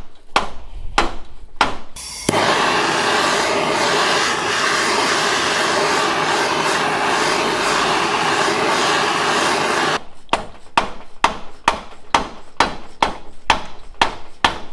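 A dead-blow mallet strikes a Honda CR500's engine cases a few times while a case splitter pulls the halves apart. Then a propane torch hisses steadily for about eight seconds, heating the stuck cases. From about ten seconds in, quick mallet taps follow at two to three a second, shocking the case halves loose.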